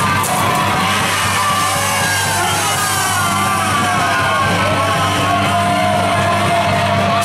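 Live rock band playing loudly: a steady bass and drum bed under held, wavering high lead lines, which could be guitar or a sung or yelled vocal.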